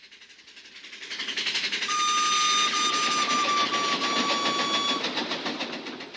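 Big Thunder Mountain Railroad mine train passing by: a fast clattering run that swells up, holds loud, then fades away. A steady high tone sounds over the clatter through the loudest middle stretch.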